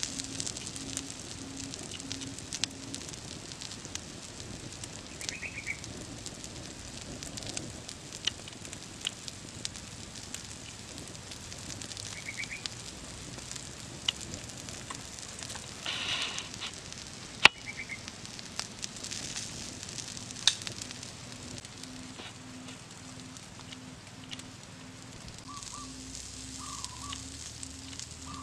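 Wood fire crackling with sharp pops under a stone cooking slab, with frogs sizzling on the hot stone.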